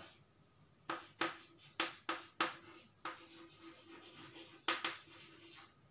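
Chalk writing on a chalkboard: short scratching strokes, five in quick succession in the first half and two more near the end.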